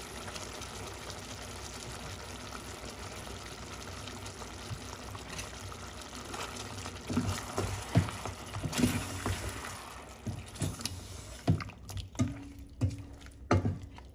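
Chicken and yogurt sizzling and bubbling in a hot stainless-steel pot. From about seven seconds in, a wooden spoon stirring, with irregular scrapes and knocks against the pot.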